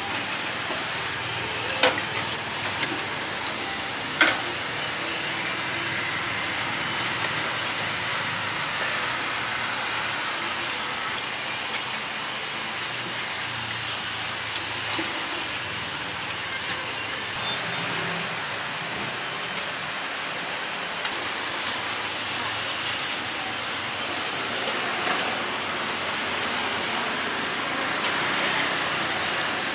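Hot oil sizzling steadily in an electric deep fryer as a batter-coated corn dog fries. Two sharp metal clicks, about two and four seconds in, from the tongs against the wire fry basket.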